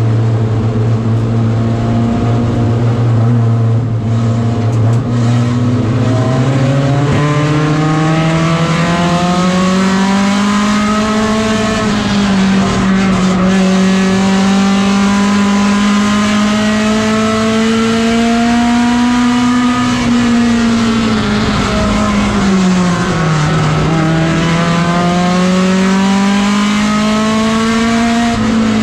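Front-wheel-drive mini stock race car's engine heard from inside the caged cockpit. It runs low and steady at first, then climbs in pitch from about four seconds in as the car accelerates and holds high. About three-quarters of the way through it dips briefly and climbs again.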